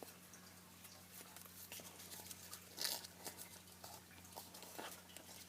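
Square sheet of origami paper rustling and crinkling faintly as it is folded and creased, with a slightly louder crackle about three seconds in.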